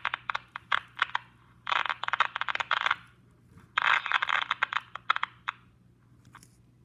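Small puck-shaped novelty radio's speaker crackling with static: scattered sharp clicks, then two thin, tinny bursts of crackling hiss, each a second or two long, dying to a few faint clicks near the end.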